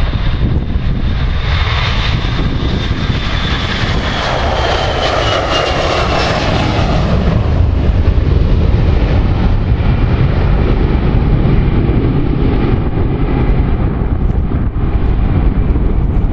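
Airbus A321-200 jet engines at take-off thrust as the airliner lifts off and climbs away. A high whine falls steadily in pitch as it passes, then settles into a steady low rumble.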